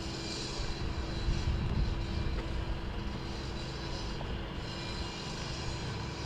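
Motorboat engines running as boats pass: a steady low drone with a held hum over it.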